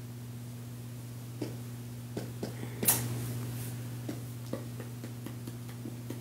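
Steady low hum with scattered soft clicks and taps, the sharpest click about three seconds in.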